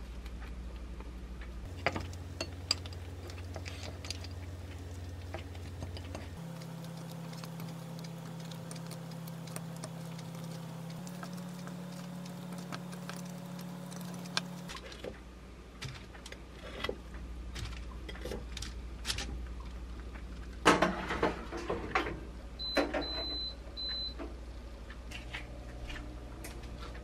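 Soft taps and rustles of hands working food on a plate, then a short clatter, followed by three short electronic beeps from the air-fryer oven's control panel as it is set. A low hum runs underneath.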